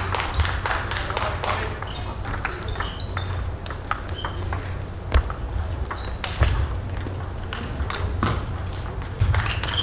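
Table tennis balls clicking off paddles and the table in a rally: many sharp, short hits, with voices in the background.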